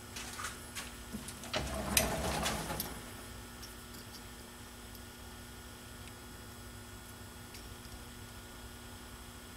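Small metal clicks and a brief rattle about one and a half to three seconds in as a steel thread pitch gauge is handled and held against freshly cut threads in a titanium tube, then only a steady low hum.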